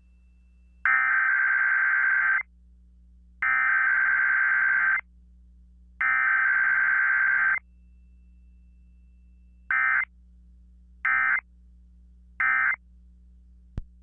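Emergency Alert System (SAME) digital data bursts for a required weekly test: three long, harsh, buzzy bursts of the header code, evenly spaced over the first eight seconds, then three short bursts of the end-of-message code about a second and a half apart near the end. A faint low hum sits underneath.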